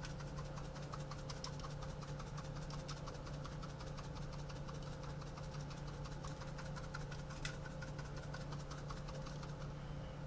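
A spice shaker being shaken to sprinkle parsley flakes onto a salmon fillet: a rapid run of light ticks and rattles, thinning out after about seven seconds, over a steady low hum.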